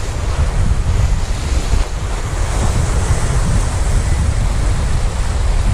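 Sea surf breaking and washing over shoreline rocks, with wind buffeting the microphone as a heavy low rumble.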